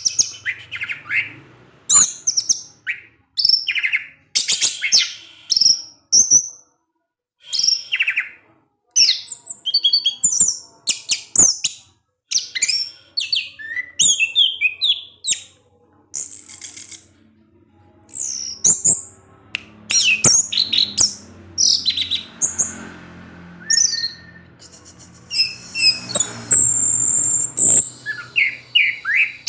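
Orange-headed thrush (anis merah) singing a varied song of short, fast whistled phrases and trills that slide up and down in pitch, with brief pauses between them.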